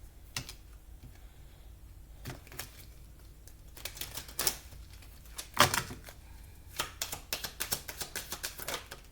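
A deck of oracle cards being handled and shuffled by hand: scattered clicks and a louder slap of cards about halfway through, then a quick run of rapid card clicks from about seven seconds in.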